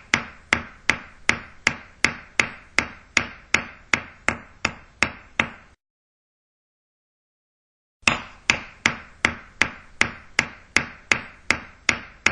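A hammer striking steadily at about three blows a second, each blow a sharp crack with a short ringing decay. The blows stop about six seconds in and pick up again about two seconds later at the same pace.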